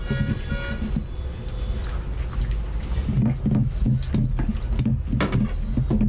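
Close-miked wet eating sounds: chewing and lip-smacking of rice and curry eaten by hand, with fingers squelching rice into the gravy. Rhythmic chewing about halfway through.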